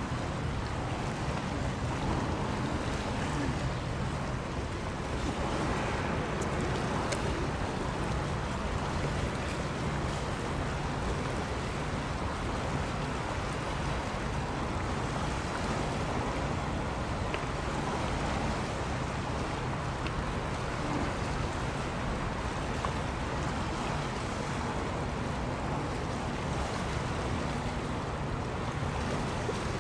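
Steady wash of wind and sea noise on the water, with a low steady engine hum from passing ship traffic underneath.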